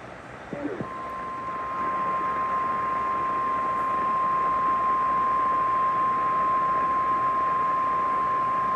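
NOAA Weather Radio 1050 Hz warning alarm tone: one long, steady beep starting about a second in, over radio hiss. It is the attention signal that comes before a broadcast severe thunderstorm warning.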